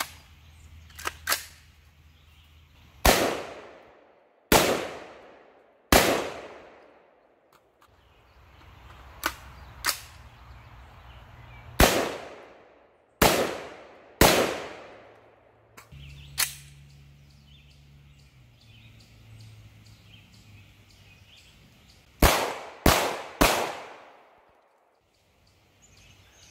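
Palmetto State Armory AR-15 pistol in 5.56 NATO fired semi-automatically, about ten loud shots taken singly with pauses of one to several seconds. Each report trails off in a long echo, and a quick string of three shots comes near the end.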